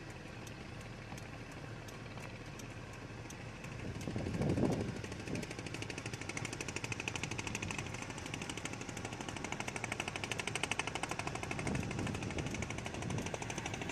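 A small engine chugging with rapid, even knocks, faint at first and louder from about four seconds in, then running steadily.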